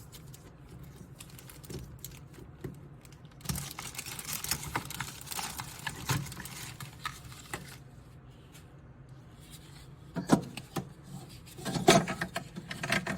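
Plastic ice cube tray being handled and fitted into the small freezer compartment of an Upstreman 46L mini fridge: scattered light clicks and plastic scraping, a stretch of rattling a few seconds in, and a few sharper knocks near the end.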